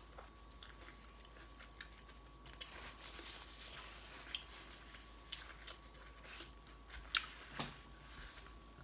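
Faint chewing of a mouthful of chicken burrito, with scattered small mouth clicks and smacks and a sharper click about seven seconds in.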